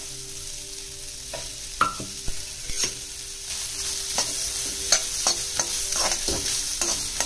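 Chopped onion sizzling in a hot, dry kadai with no ghee or oil, while a metal spoon stirs it and scrapes and taps against the pan. The sizzle grows louder about halfway through.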